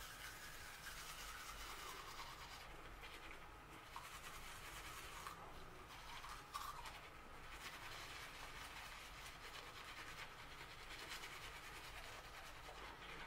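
Manual toothbrush scrubbing teeth with activated-charcoal tooth powder: a faint, steady bristly scrubbing with a few brief pauses.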